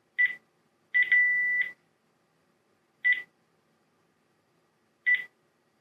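Panasonic KX-TGE633M cordless phone handset key tones as its buttons are pressed to step through menus: short single beeps on one high pitch, spaced a second or two apart, with one about a second in that starts with a couple of quick pulses and holds on as a longer beep.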